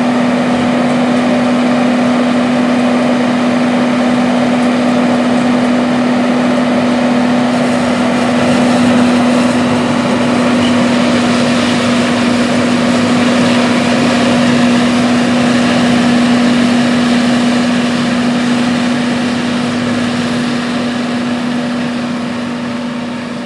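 A John Deere 5830 self-propelled forage harvester chopping corn at work, its engine and chopper running under load as it blows silage into a truck: a loud, steady drone with a strong constant hum. It fades somewhat over the last few seconds as the machine moves away.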